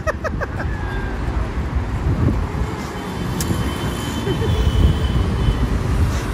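Roadside traffic noise: a steady rumble of passing vehicles, with voices in the background and a thin high steady tone for a couple of seconds midway.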